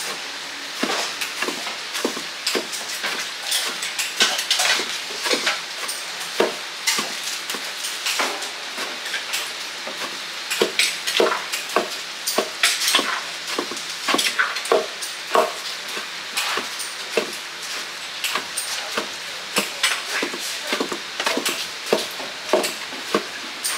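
Kitchen work: frequent irregular clicks and knocks of utensils over a steady sizzling hiss.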